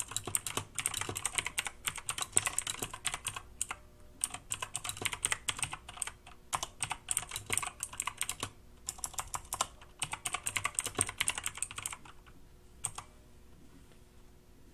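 Typing on a Yeyian Flare 2000 series mechanical keyboard with blue switches, fast runs of sharp clicks broken by short pauses. The typing stops about twelve seconds in, and one last keystroke follows a second later.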